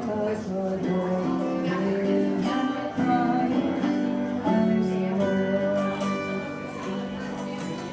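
Music with an acoustic guitar playing a melody over chords.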